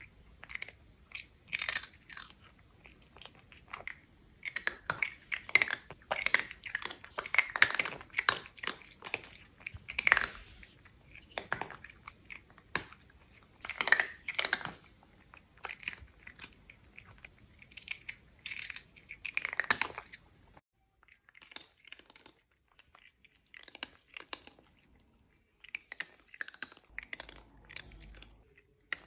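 A cat chewing crunchy food: quick, crisp crunches in irregular clusters, sparser and quieter for the last third or so.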